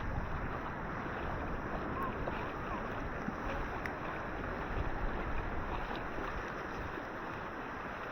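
Ocean surf washing in at the shore, a steady rushing noise.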